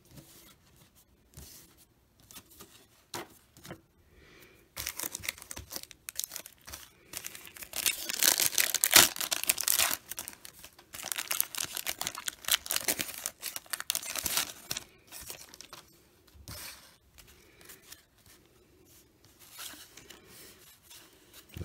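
Wrapper of a 1989 NBA Hoops basketball card pack being torn open by hand, starting about a quarter of the way in, loudest near the middle and dying away shortly after.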